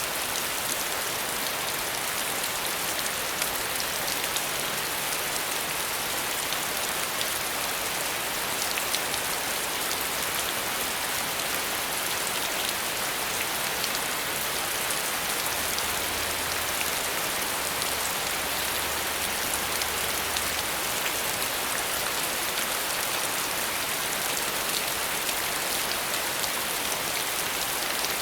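Steady rain falling, a continuous even hiss of drops with faint scattered patter of individual drops.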